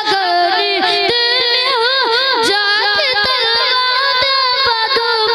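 A boy singing a naat solo into a microphone: a high child's voice holding long notes that waver and bend in ornaments.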